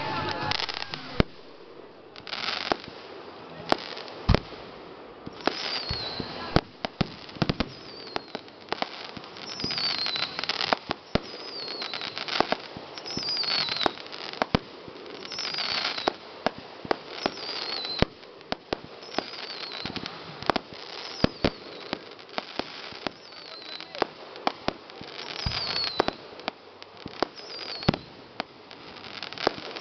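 Aerial fireworks going off in quick, irregular succession: many sharp bangs, several with a crackling tail, the loudest about a second and about four seconds in. A short, high falling note recurs every second or two from about six seconds in.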